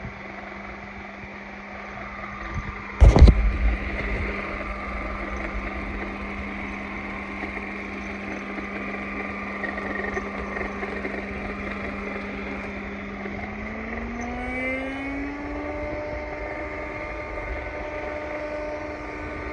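Vacuum cleaner motor running with a steady hum; about fourteen seconds in its pitch rises and settles higher as the motor speeds up. A single loud knock about three seconds in.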